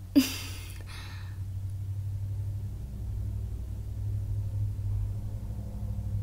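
A steady low rumble, with a short sharp noise just after the start.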